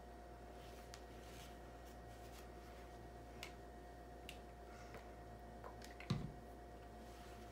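Faint light clicks and taps of a paintbrush working in a plastic watercolour palette, with one dull knock about six seconds in as a plastic squeeze bottle is set down on the stone countertop.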